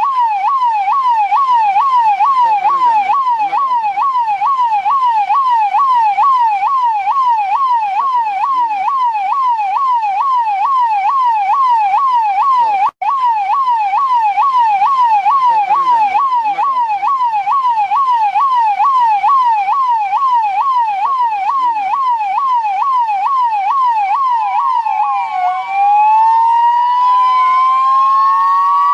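New Delhi police siren in a fast yelp, about two and a half sweeps a second, with a momentary cutout about halfway through. Near the end it changes to a slow wail that rises and falls over a few seconds, with a second siren tone crossing it.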